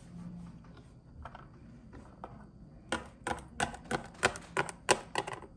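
Rapid light clicks and taps of hard plastic toy figurines being handled and set down, a few faint ones at first, then about a dozen quick ones a little past the middle.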